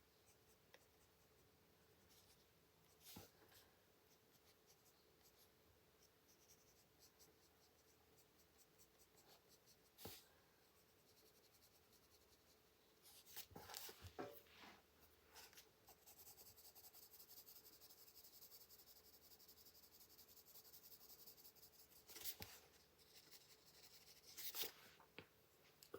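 Faint scratching of a colored pencil on paper in short, quick strokes, mostly in one run of several seconds past the middle, with a few light taps here and there.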